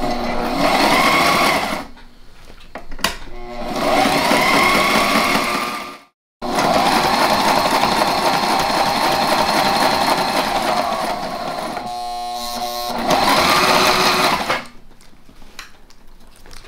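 Electric sewing machine stitching upholstery fabric to its backing, running in several bursts of a few seconds with short pauses between, speeding up as each burst starts. A brief drop to silence about six seconds in.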